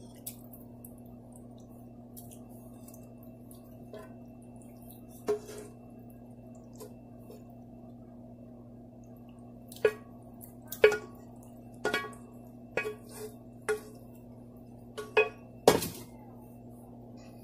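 Cookware clinking and knocking against a glass jug as curdled milk is tipped and scraped from a pot into a cloth strainer, about eight sharp clinks in the second half, the loudest near the end. A steady low hum runs underneath.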